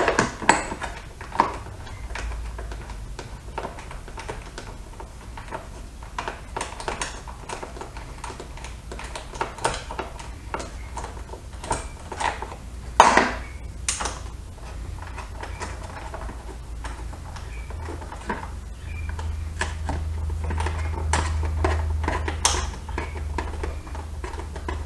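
Hand tools working bolts loose: irregular light metallic clicks and taps of a ratchet, socket and bolts, with one sharper clack about halfway through. A low hum comes up for a few seconds near the end.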